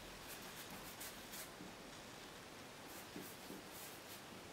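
Faint, scratchy strokes of a paintbrush working acrylic paint onto a canvas, coming in two runs of short strokes.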